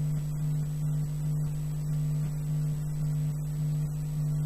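Mains hum through the amplifier from a home-built valve phono preamp whose filament is heated with AC from the transformer. It is a steady low hum that wavers slightly as the filament wires are touched.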